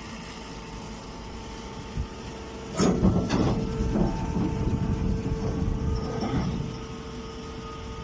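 A bagged straw bale being pulled out of a vertical baler's chamber: a sharp knock a little under three seconds in, then a few seconds of rough scraping and rustling, over a steady machine hum.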